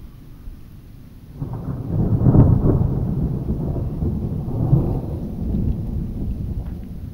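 A rolling peal of thunder: a low rumble that sets in about a second and a half in, peaks soon after, swells again a few seconds later and slowly fades.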